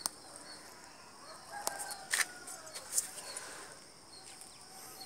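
Mint plant being handled as its leaves are pinched off, giving a few sharp clicks and rustles, the loudest about two seconds in. A rooster crows faintly in the background around the same time.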